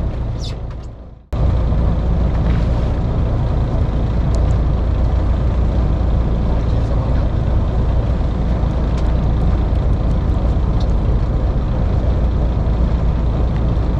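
Fishing boat's engine running steadily, a loud low hum with a wash of noise over it. The sound fades and drops out about a second in, then resumes unchanged.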